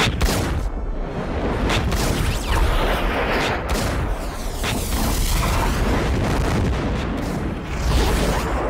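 Action-film soundtrack: dramatic music over deep booms and gunshots, with sweeping whooshes partway through.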